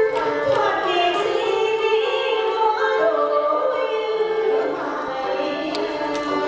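Traditional Vietnamese water puppet theatre music: singing voices holding long notes over instruments.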